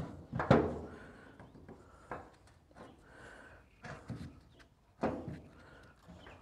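A few separate knocks and clunks of metal wiper motor parts being handled and set down on a steel workbench while the assembly is taken apart.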